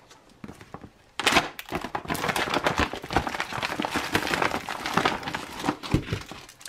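A plastic ration bag with a peelable seal is pulled open and crinkled, starting about a second in. The sealed pouches inside rustle as they are shaken out, with a couple of low thuds as they drop onto the table.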